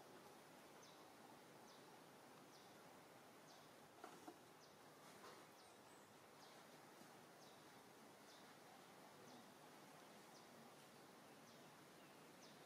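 Near silence: faint outdoor background hiss with a faint, short, high chirp repeating roughly once a second, and a couple of soft clicks about four seconds in.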